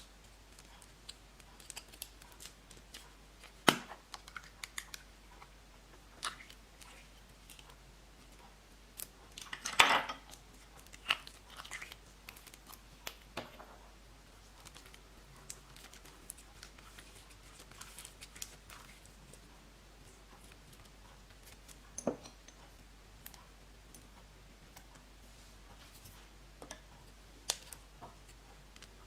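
Slime being worked by hand, giving sparse sticky clicks, pops and short crackles at irregular intervals, with a louder cluster about ten seconds in.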